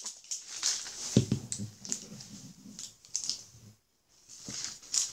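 Plastic wrapping and a paper slip from an L.O.L. Surprise! ball being handled and unwrapped, with rustling and crinkling, scattered clicks and taps, and a single knock about a second in.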